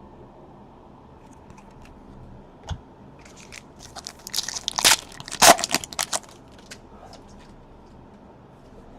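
Trading-card packaging being handled: a single light knock, then a few seconds of crinkling and rustling a little after the midpoint.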